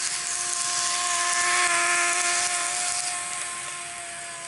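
N gauge model train running close past, its small motor whining with steady tones under the rattle of the wheels on the track. The sound swells to its loudest about halfway through and then fades.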